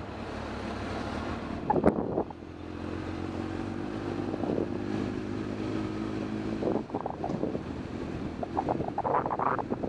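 Motorcycle engine running while riding, with wind rushing over the microphone. The engine note holds steady for several seconds in the middle. There is a sharp thump about two seconds in, and gusty rumbling near the end.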